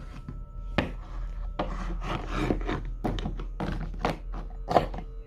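Plastic Schleich hellhound toy figure walked by hand across a painted play board: a string of irregular light knocks as it is set down again and again, with some scraping as it slides.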